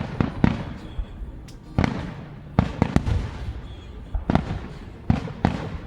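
Aerial fireworks exploding: a string of sharp bangs at irregular intervals, about two a second at times, over a continuous low rumble of more distant bursts.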